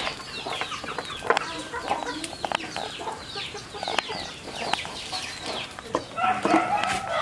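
Chickens: chicks peeping over and over in short falling chirps, with a lower clucking call near the end, over scattered sharp clicks.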